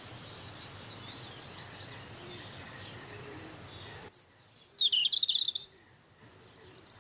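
Birds chirping and calling over a steady outdoor background hiss, with a louder warbling song about five seconds in.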